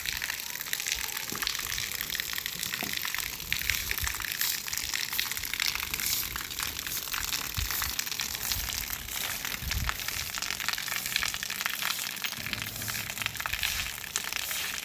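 Steady sound of falling, splashing water, an even hiss dense with fine patters.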